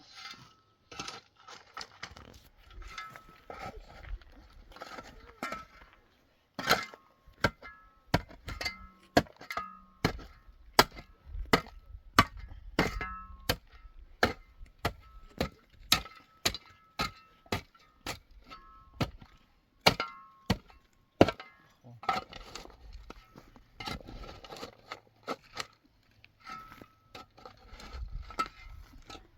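Repeated sharp strikes, about two a second, of a hand tool chopping or hammering. They are loudest and most regular through the middle, with quieter, sparser knocks at the start and near the end.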